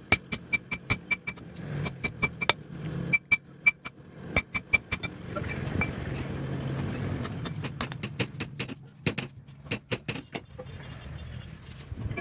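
Hammer blows on iron in quick runs of several strikes a second, with pauses between, many with a bright metallic ring. A steady low hum runs underneath.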